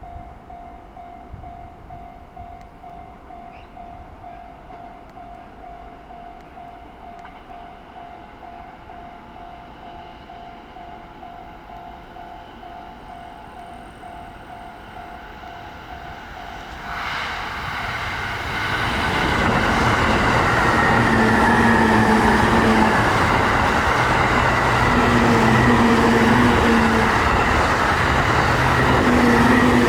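Level crossing warning bell ringing in a steady pulsing rhythm. About halfway through, a JR East E531 series electric train arrives and passes at speed, and the loud, steady rush of wheels on rail drowns the bell.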